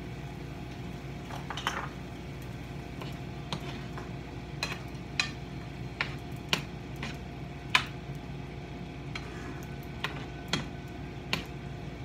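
A cooking utensil stirring chicken strips and carrots in a frying pan, knocking and scraping against the pan about a dozen times at uneven intervals, with light sizzling. A steady hum runs underneath.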